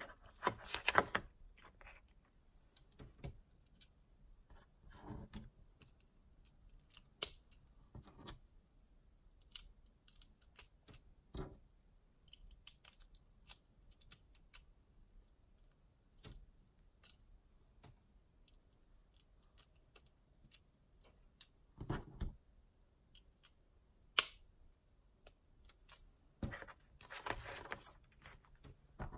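Plastic LEGO bricks being handled and pressed together: scattered sharp clicks and short clusters of clattering and rustling, with quiet gaps between.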